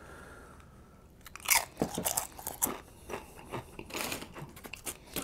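Close-miked chewing of a mouthful of burrito, with irregular crunchy bites and wet mouth sounds starting about a second and a half in.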